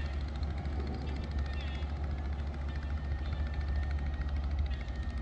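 Boat engine running steadily during docking, a deep, even low rumble.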